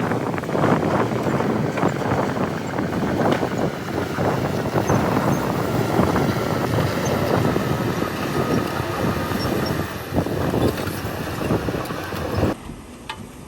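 Heavy earthmoving machinery working soil: a diesel engine running under a dense, crackling rush of dirt and stones being pushed or dumped. It cuts off abruptly near the end.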